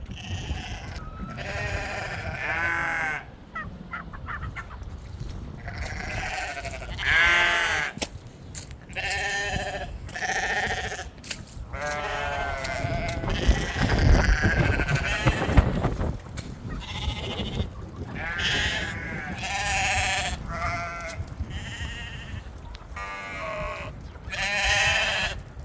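A flock of sheep bleating again and again, each call a wavering, quavering bleat, some overlapping. About halfway through there is a louder stretch of low rumbling noise with a few sharp knocks.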